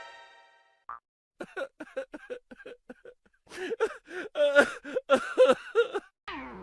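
A person laughing in a quick run of short bursts, quiet at first and then louder and fuller from about halfway through.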